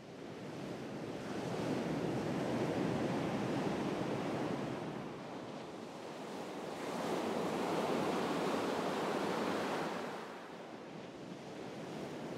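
Ocean waves washing in a steady rush of surf. It fades in at the start and swells twice, once about two seconds in and again about seven seconds in.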